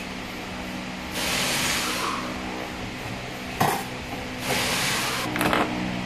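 Metal gearbox internals being handled: the clutch drum and shaft assembly of a ZF 6HP-28X automatic transmission scraping and clinking as it is worked out of the case. Two rushing, scraping noises about a second long each, a sharp clink near the middle and a few quick clinks near the end, over a steady workshop hum.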